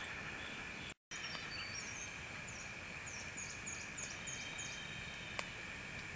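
Steady night chorus of insects, an even high buzz, broken off for an instant about a second in. Through the middle a run of about eight quick, high falling chirps sounds, and a single sharp pop comes near the end.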